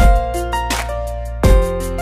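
Background music: sustained keyboard-like chords over a deep bass beat, with a heavy bass hit at the start and another about a second and a half in.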